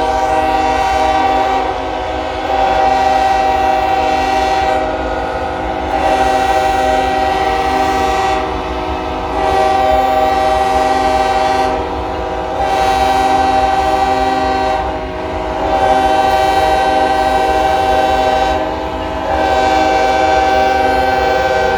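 Several locomotive horns sound together in a continuous, overlapping chord that swells louder about every three seconds, over a low rumble.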